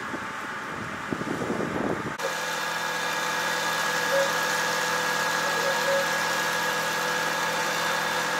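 A rough, uneven rumble for about two seconds, then an abrupt switch to an engine running steadily at idle with a constant hum. The engine is the fire engine at a wildfire, running to supply the water jets.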